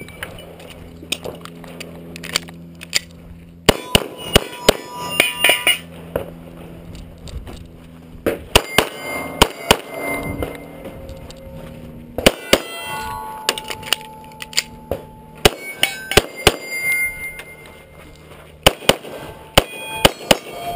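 Beretta 92A1 9mm pistol fired in quick strings of shots, several a second, with short pauses between strings. Steel targets ring after many of the hits.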